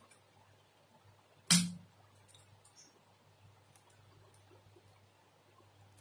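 A single sharp knock with a brief low ring about a second and a half in, amid faint scattered clicks of handling.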